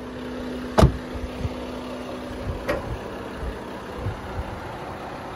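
Jeep Gladiator's 3.0 EcoDiesel V6 idling with a steady hum. A single loud knock about a second in, and a lighter click a couple of seconds later.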